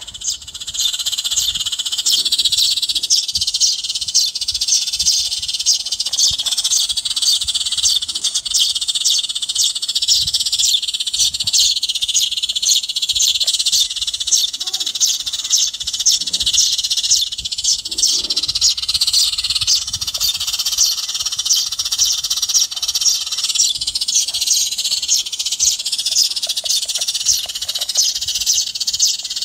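Modded bird-trapping speaker, fitted with a 4.7 µF capacitor and a quartz piezo tweeter, playing a recording of sparrows chirping rapidly and without pause, high and bright. The sound is clear, not muffled or hissy.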